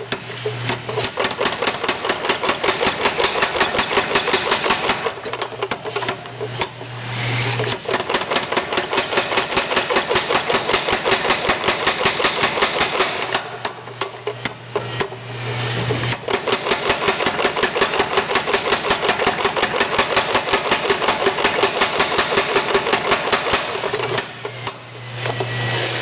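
A 25 lb Little Giant new-style power hammer pounding, about five blows a second, drawing out round bar stock. The blows come in three long runs, and in the short pauses between them the drive motor hums steadily.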